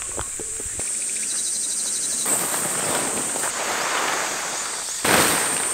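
Insects buzzing in a steady high-pitched drone, with a loud rustle about five seconds in as a plastic groundsheet is spread out on gravel.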